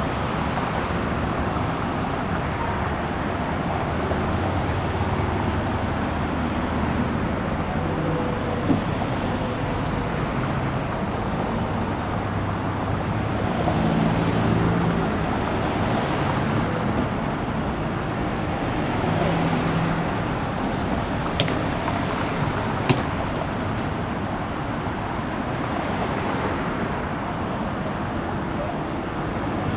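Steady highway traffic noise of vehicles passing, with low engine hum rising and falling, and two sharp clicks about two-thirds of the way through.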